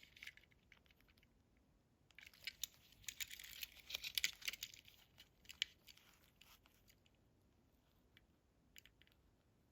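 Faint handling noise from toy cars being moved in the hands: light clicks and crinkling for a few seconds starting about two seconds in, then near silence with a couple of single clicks near the end.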